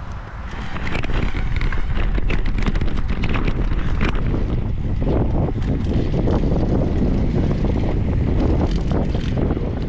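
Wind buffeting the microphone of a bike-mounted camera while riding a bicycle, a loud low rumbling rush that picks up about half a second in, with faint road and bike noise underneath.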